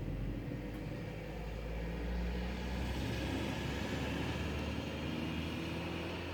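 Low, steady droning rumble with several steady tones in it, and a hissing layer that swells through the middle and eases near the end. It is an unexplained noise that the recordist calls eerie.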